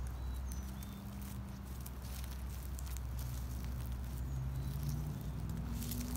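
Footsteps rustling and crackling in dry fallen leaves, light irregular crunches over a low steady rumble. Faint bird chirps sound a few times in the distance.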